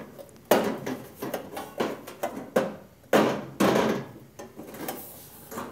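20 gauge mild steel sheet knocking and clattering against the plasma table's slats as a freshly cut part is pressed and worked loose from the sheet: a series of sharp knocks, roughly two a second, some louder than others.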